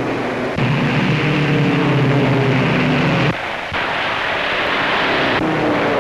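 Racing car engines running at speed on a 1930s newsreel soundtrack: a steady drone that changes abruptly several times, about half a second in, twice around three and a half seconds, and again near five and a half seconds.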